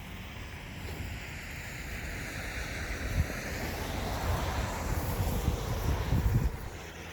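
Wind gusting on the microphone: a low buffeting rumble under a rushing hiss that swells over several seconds and falls away sharply near the end.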